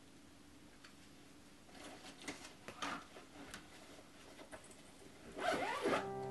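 A backpack being handled, with rustling and a few light knocks, then its zipper pulled shut in one quick run near the end. Held musical notes come in right at the very end.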